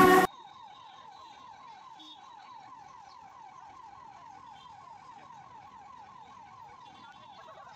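Loud background music cuts off abruptly at the very start. What remains is a faint electronic siren-like tone warbling in quick, even sweeps, about five a second.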